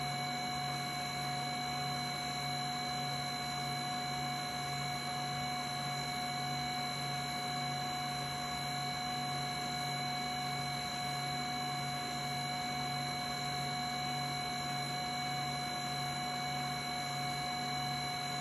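HumminGuru ultrasonic record cleaner running its drying cycle: fan motor humming steadily with a constant whine, the low hum pulsing gently as the record turns slowly in the slot.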